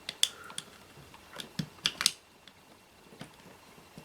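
A handful of sharp clicks and light taps from plastic and metal parts of the monitor being handled and pried at, mostly in the first two seconds.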